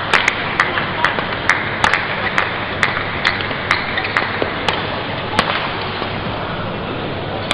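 Sharp cracks of badminton rackets striking a shuttlecock in a fast doubles rally, about two a second, ending about five seconds in, over the steady noise of an arena crowd.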